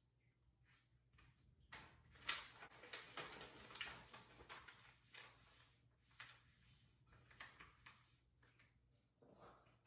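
Faint knocks, clicks and rustling, starting about two seconds in and thinning out towards the end, over a steady low hum.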